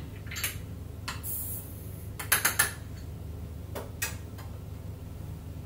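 Light clicks and taps of a powder pan being handled, and a weighed rifle powder charge being tipped through a funnel into a cartridge case. There is a brief hiss of powder kernels pouring about a second in, and a quick cluster of clicks a little over two seconds in.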